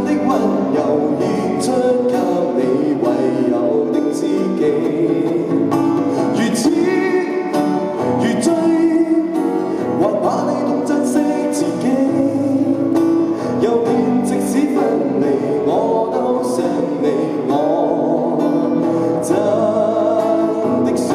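Live acoustic pop ballad: a steel-string acoustic guitar strummed under a sung vocal line, from a guitar-and-voice duo.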